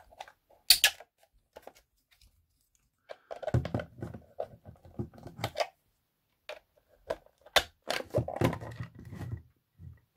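Hands handling a 3D-printed plastic box: a few sharp plastic clicks and knocks, with rubbing and scraping of the printed parts between them.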